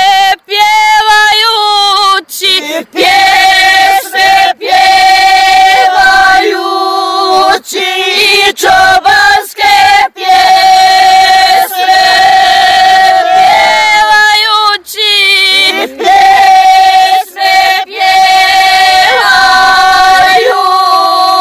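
A group of women singing a traditional Serbian rural song (zavičajna pjesma) together, unaccompanied, in long held notes with short breaks for breath.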